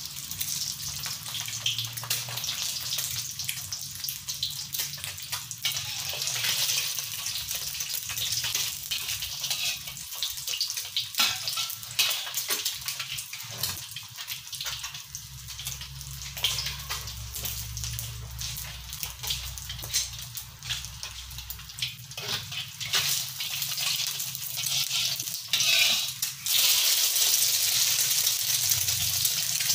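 An egg frying in hot oil in a wok: a steady sizzle with dense crackling spatter, growing louder shortly before the end.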